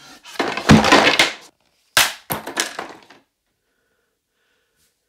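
Wooden flatpack furniture panels crashing and cracking: one long crash, then about a second later a sharp crack followed by a few quicker knocks.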